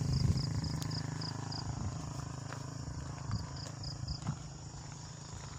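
A low engine drone, from a passing motor vehicle, fading away, while an insect chirps in short trains of high, rapid pulses, about four a second.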